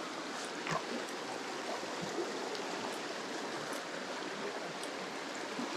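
Mountain stream water rushing steadily over rocks, with a few faint knocks.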